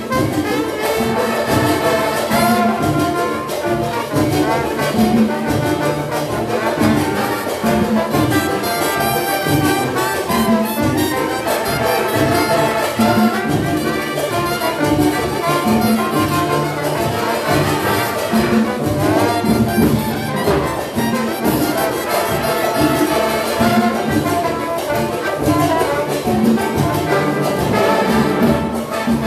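Big band with trumpets and trombones playing Latin dance music with a steady beat.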